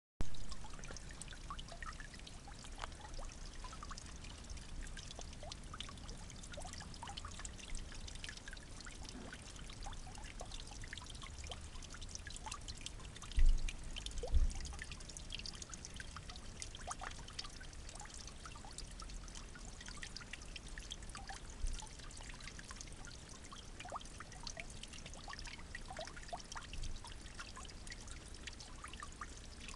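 Water trickling and splashing steadily, with many small drips and ticks scattered through it. Two low thumps come about halfway through and a softer one a little later.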